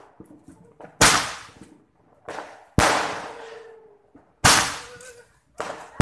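Handheld roman candle firework shooting off shots: four sharp bangs about every one and a half to two seconds, each trailing off over a second or so.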